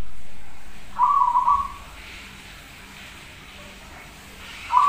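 Zebra dove (perkutut) cooing: one short, warbling coo about a second in, and a second coo beginning just before the end.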